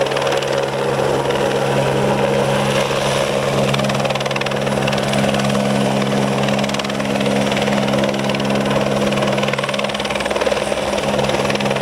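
Eurocopter AS350 helicopter running steadily, with a continuous low hum of rotor and turbine over a broad rushing noise.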